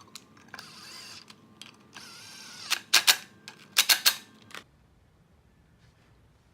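Mechanical handling sounds: a couple of short scrapes, then two quick clusters of sharp, loud clicks and clacks about three and four seconds in, after which it goes quiet.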